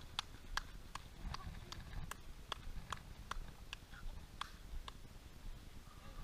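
Footfalls of runners' shoes striking an asphalt lane: sharp, irregular steps at about two to three a second, thinning out after about four and a half seconds.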